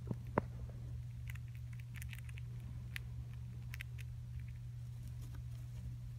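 Dwarf hamster moving in its soft paper nest bedding: scattered faint clicks and small rustles, with one sharper click about half a second in, over a steady low hum.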